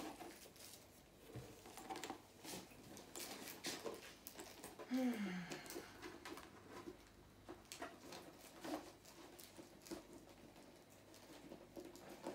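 Handling of an Emporio Armani faux-leather tote bag: scattered soft rustles, taps and small clicks as a pouch is put inside and the strap is moved. About five seconds in there is a short, low, falling hum of a voice.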